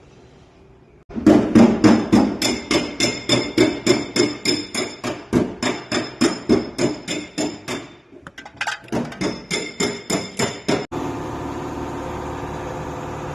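Hammer striking metal in quick regular blows, about four a second, each with a short metallic ring, with a brief pause partway through. Near the end the hammering stops abruptly and a steady mechanical hum takes over.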